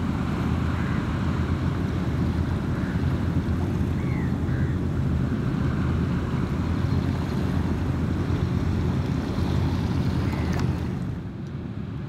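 A steady low rumble with faint, short rising chirps from a small bird a few times over it. The rumble drops a little near the end.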